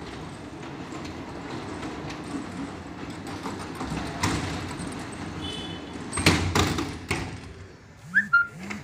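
Stainless steel sliding gate rolling along its track with a steady low rumble, then knocking loudly a few times as it reaches the end and shuts, about six to seven seconds in. Two short sharp sounds follow near the end.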